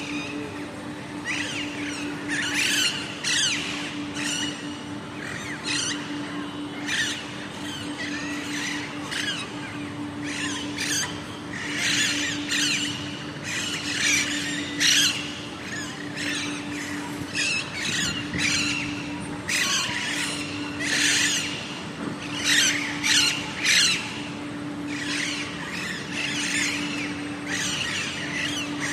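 A flock of parrots squawking: many short, harsh, high calls, one after another and overlapping, going on throughout, with a steady low hum beneath.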